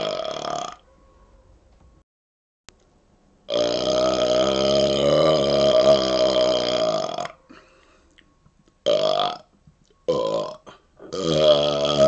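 A man burping on command: long, drawn-out, wavering burps. One trails off just under a second in, a long one runs from about three and a half to seven seconds, two short ones come around nine and ten seconds, and another long one starts near the end.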